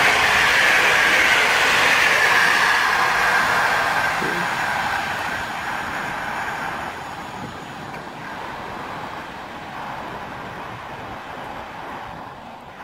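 Intercity passenger train hauled by an EP09 electric locomotive passing through at speed: the rushing wheel-on-rail noise of its coaches, fading steadily as the train draws away.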